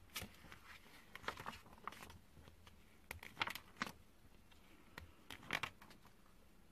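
Pages of a paperback picture book being opened and turned by hand: several short, quiet paper rustles and flaps.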